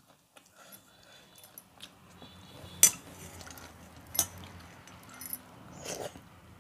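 Metal clinks against a stainless-steel bowl as water rice is scooped from it by hand: small ticks, then two sharp clinks about a second and a half apart, the first the loudest. A softer eating sound comes near the end as the rice goes to the mouth.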